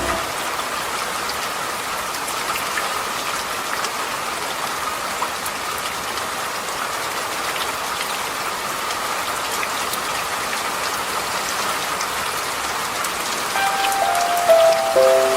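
Steady rain falling on a surface, an even hiss with scattered drip ticks. Soft musical notes come back in near the end.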